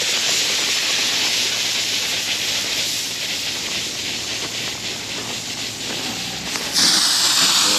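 Lawn sprinkler heads hissing as compressed air forces the remaining water out of the zone lines, a mixed spray of air and water mist. The hiss steps up louder and sharper near the end.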